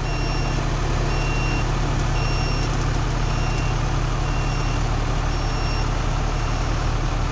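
Old loader's Cummins diesel engine running steadily while its reversing alarm beeps about once a second, as the loader backs up to pull fence wire tight.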